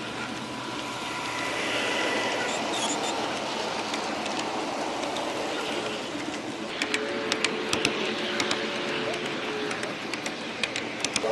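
G gauge model train running on outdoor garden-railroad track: a steady rolling rumble from its wheels and motor, with a run of sharp clicks in the second half.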